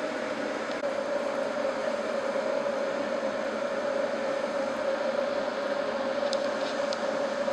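Saucepan of noodles at a rolling boil on a gas hob: steady bubbling and burner noise, with a steady hum-like tone running through it.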